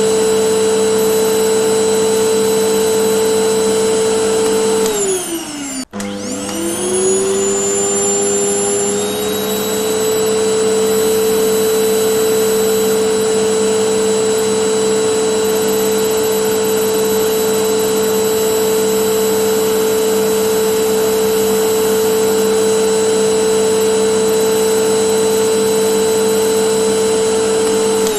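Vacuum cleaner motor running with a steady whine. About five seconds in its pitch falls as it winds down, and it starts again, spinning back up to full speed over the next few seconds.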